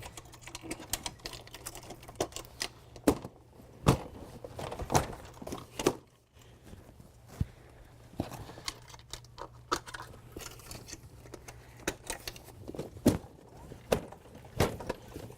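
Irregular clicks and knocks as the rods of a folding boat frame are knocked off the ribs during disassembly, over a faint steady hum.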